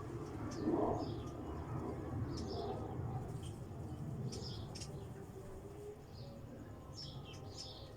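Small birds chirping, short high chirps repeating at irregular intervals over a steady low background rumble.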